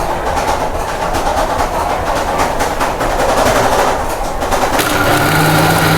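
Rain pattering steadily, a dense rush of rapid drops. About five seconds in, a steady motor hum starts and keeps on.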